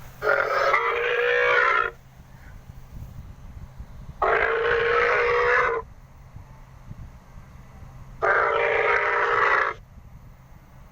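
Hadrosaur call sound effect: three long, loud calls, each about a second and a half with a steady pitch, spaced about four seconds apart, over a faint steady low hum.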